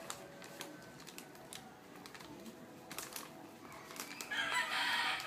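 Crinkly foil snack bag rustling and crackling in small hands, in scattered light ticks. A rooster starts to crow a little after four seconds in.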